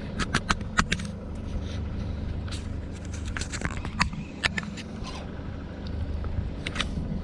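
Low, steady rumble of wind on the microphone, with a scatter of sharp clicks and knocks: several close together about a second in, more around the middle, and a couple near the end.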